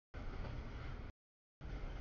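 CSX double-stack container train rolling past, its wheels on the rails making a steady low rumble. The audio cuts out to dead silence for about half a second near the middle.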